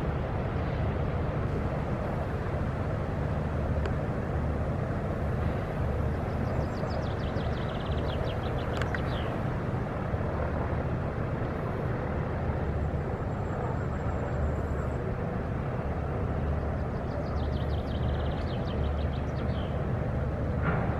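Steady harbourside outdoor noise: a low, fluttering rumble with an even hiss over it. Twice, about a third of the way in and again near the end, comes a short run of rapid high chirping calls.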